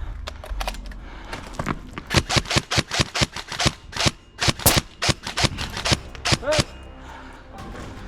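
Airsoft rifle firing a rapid string of single shots, about four or five a second. The shots start about two seconds in and stop after about four and a half seconds.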